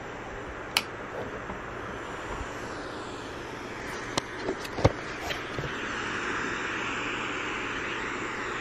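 A camera being handled close to its microphone: a few sharp clicks and knocks over a steady rushing background noise that grows a little louder about halfway through.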